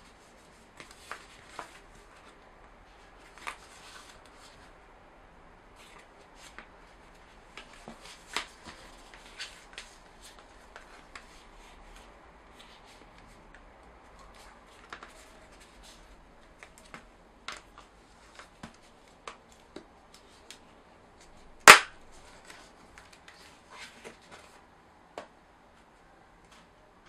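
Scattered sharp plastic clicks and taps as a Samsung Galaxy Tab S is handled and its book cover's snap buttons are pressed into the back of the tablet. One click about 22 seconds in is much louder than the rest.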